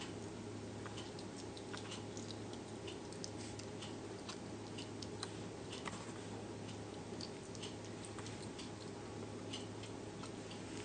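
Slow loris chewing a piece of fruit: small, irregular clicks and smacks, several a second, over a steady low hum.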